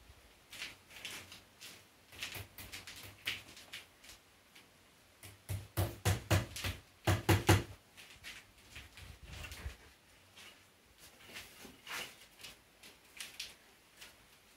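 Claw hammer tapping nails into a wooden post to pin old irrigation hose in place: scattered light taps, with a run of harder, quicker blows about halfway through.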